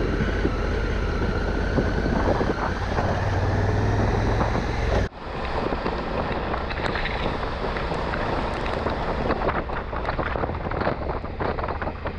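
Honda Africa Twin adventure motorcycle running on the move, with a steady low engine hum and wind noise. About five seconds in the sound cuts abruptly to a duller, crackling noise full of small ticks.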